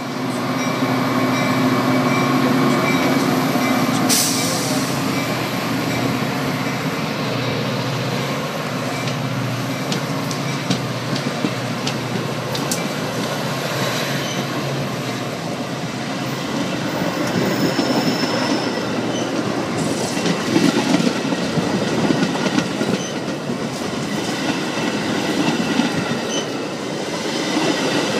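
Metra train's bilevel passenger cars rolling past close by, their wheels rumbling on the rails. A steady diesel locomotive engine hum is heard in the first few seconds, and there is a brief high wheel squeal about halfway through.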